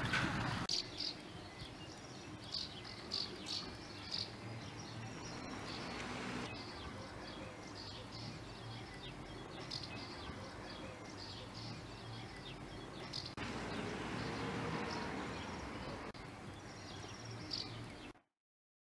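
Small birds chirping in quick, scattered calls over a steady faint outdoor background. The background shifts a couple of times and everything cuts off abruptly near the end.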